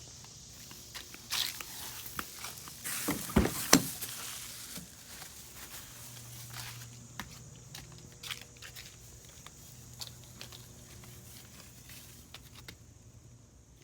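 Footsteps and handling knocks as someone walks around a Jeep Wrangler and opens its door, with a cluster of sharp clicks and knocks about three to four seconds in, then a few softer clicks.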